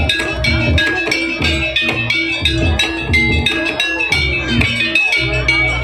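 Jaranan gamelan music: tuned metal percussion struck in quick, even notes over deep drum strokes.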